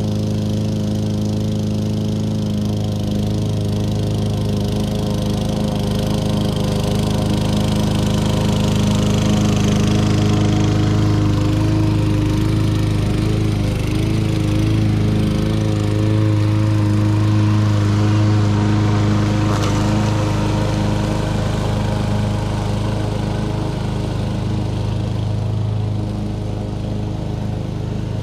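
1994 Lawn-Boy 10310 mower, repowered with a 6.5 hp Tecumseh LV195EA four-stroke engine, running steadily while mowing grass.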